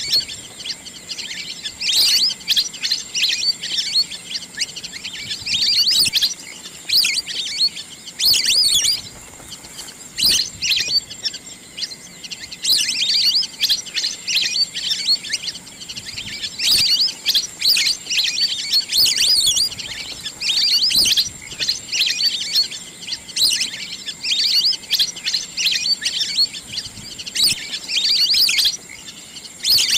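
Wild duck calls: repeated bursts of quick, high-pitched chirping and twittering, a burst every second or two.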